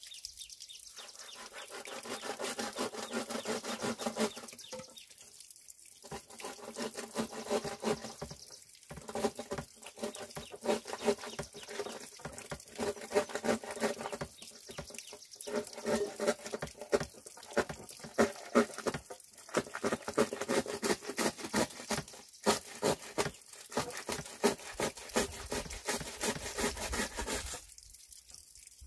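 Rapid, irregular tapping and scraping from hand work on bamboo, with a faint hollow ringing under the taps. It stops briefly several times and ends shortly before the close.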